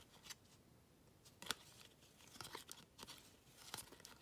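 2017 Topps Series 2 baseball cards being flipped through one by one, the card stock sliding and ticking softly as each card is moved to the back of the stack. The sound is faint, with a sharper tick about a second and a half in.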